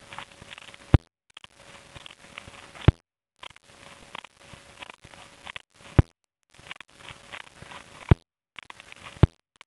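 Scissors cutting through newspaper, with the paper rustling and crackling as it is cut into strips. Five sharp clicks stand out, loudest of all, spaced a second or two apart, and the sound drops out briefly several times.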